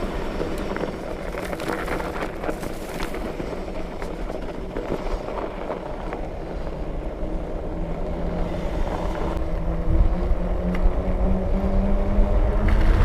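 Fat bike being ridden: wide knobby tyres rolling and humming over a packed surface, with wind noise on the microphone. The tyre hum grows into a droning tone that rises slightly in pitch over the last few seconds as the bike speeds up.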